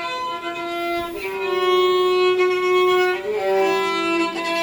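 Solo violin playing slow, long held notes, moving to a new note about a second in, after about three seconds and again near the end.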